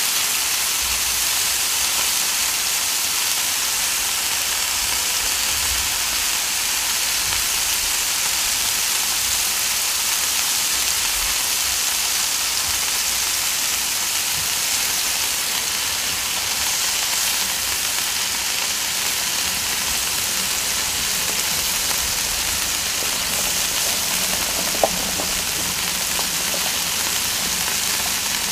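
Smash burger patties, potatoes, onions and bacon sizzling on a hot Blackstone flat-top griddle: a steady hiss of frying fat. One sharp click near the end.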